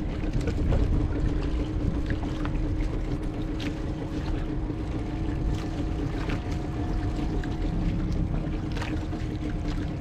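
Small outrigger fishing boat's engine running steadily at low revs, with wind and water noise and occasional light clicks or knocks.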